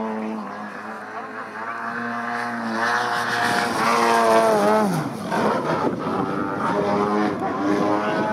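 Engine and propeller of a 104-inch Extreme Flight Extra 300 V2 radio-controlled aerobatic model plane, its note rising and falling with the throttle through manoeuvres. It is loudest about four seconds in on a low pass, then drops sharply in pitch as it goes by.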